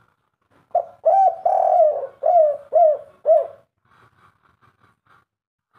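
Spotted dove (derkuku) cooing a 'kuk 3' song: a run of about six loud, arching coos, the second one drawn out, ending about three and a half seconds in, then a few faint short notes.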